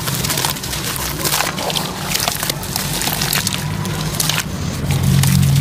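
Wet sand-cement chunks being crushed and crumbled by hand under water: dense crackling and crunching with splashing. A low steady hum runs underneath and gets louder near the end.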